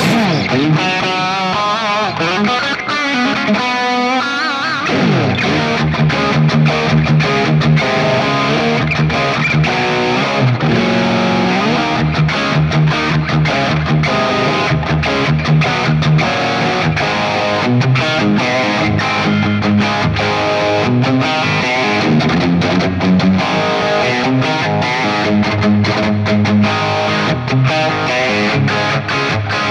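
Distorted electric guitar played through an Axe-FX III amp-modeller preset with Greenback speaker-cabinet simulation: a crunchy, slightly boxy rock tone. Quick lead runs and bends open the passage, then a riff of repeated low chugging notes with chords over it.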